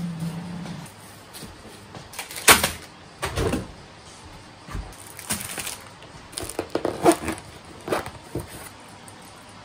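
Food-packing handling sounds on a stainless-steel kitchen counter: cling film crinkling around rice balls, packs and juice cartons set down with light knocks, and a canvas bag rustling. The sounds come as a scattering of short knocks and rustles, with the loudest about two and a half seconds in and about seven seconds in.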